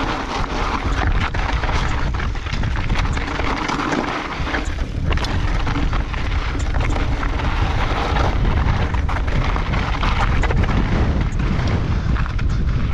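Mountain bike descending a rocky trail: wind buffeting the microphone as a steady low rumble, with tyres crunching over loose rock and the bike rattling and clacking over bumps.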